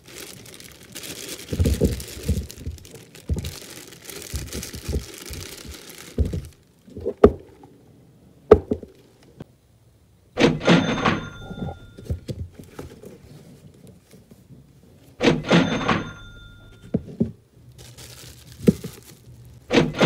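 Food being packed in plastic bags and plastic storage containers. Plastic rustles and crinkles with soft thunks for the first six seconds or so, then come a few sharp clicks and louder handling bursts about five seconds apart, each with a brief ringing tone.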